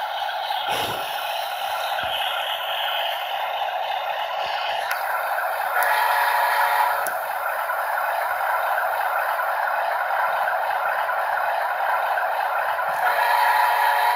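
Model BNSF diesel locomotive running along layout track, a steady mechanical running sound with rail clatter. It grows louder for a moment about six seconds in and again near the end.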